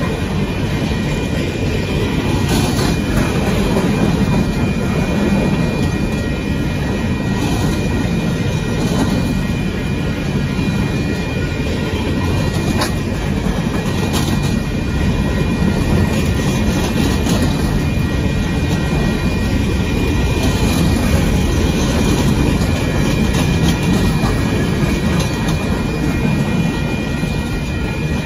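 Union Pacific coal train's cars rolling past a grade crossing: a steady loud rumble and clatter of steel wheels on the rails, with a steady high-pitched tone running through it.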